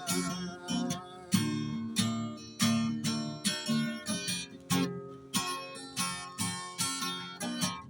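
Instrumental break in a song: strummed guitar chords in a steady rhythm, with the last sung note fading out just as it begins.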